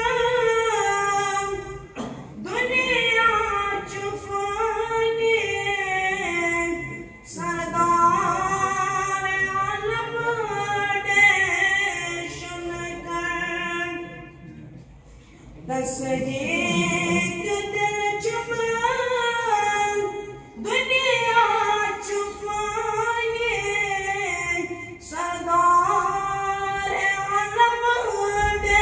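A boy singing unaccompanied, in long held, wavering phrases, with a pause of about a second and a half about halfway through.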